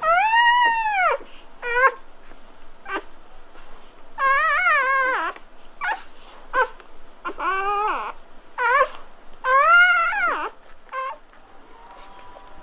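Newborn golden retriever puppies whimpering and squealing: a run of about nine high, thin cries, some long, rising and then falling in pitch, others short chirps, stopping shortly before the end.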